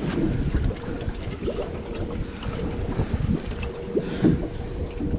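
Wind buffeting the microphone on an open boat, with water sloshing at the hull, a few small knocks, and a steady low hum throughout.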